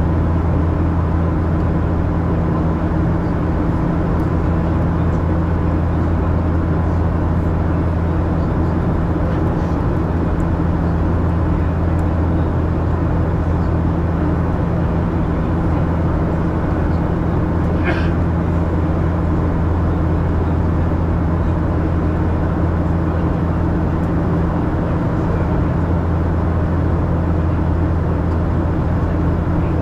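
Steady cabin drone inside a Boeing 737-800: the hum of the engines and air systems at a constant level, with a low hum and a faint steady whine. A brief high chirp cuts through once, a little past halfway.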